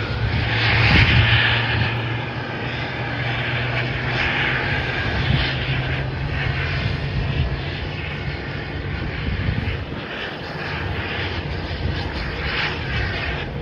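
Jet engines of a StarFlyer Airbus A320 running at taxi power: a steady, distant rushing whine with a low hum beneath, swelling briefly about a second in and again a few seconds later.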